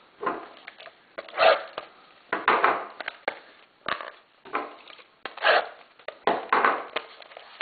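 Trading-card pack packaging handled and opened by hand: a string of short rustling, scraping noises, roughly one a second.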